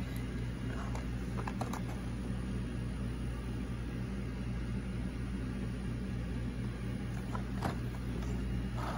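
A steady low hum, the loudest sound throughout, with a few faint clicks and crinkles from a plastic blister pack being handled, about a second and a half in and again near the end.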